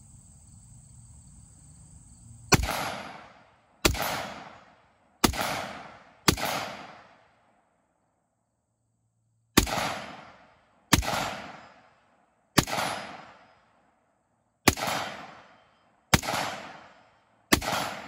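AR-15 rifle fired semi-automatically, ten single shots about one to two seconds apart, with a pause of about three seconds after the fourth. Each sharp crack trails off over about a second.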